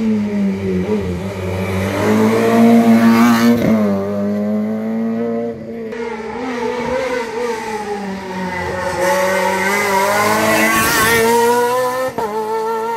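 A rally car's engine revving hard on a special stage, its pitch climbing and dropping several times with gear changes and throttle lifts as the car approaches, with an abrupt change in the sound near the end.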